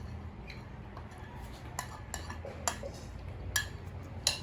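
Tableware clinking during a meal: about four sharp clinks, each with a short ring, spread over a few seconds.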